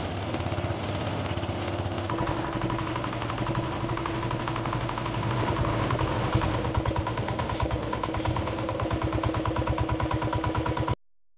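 Outrigger fishing boat's (bangka's) engine running with a rapid, even pulse. It gets louder about two seconds in and cuts off abruptly near the end.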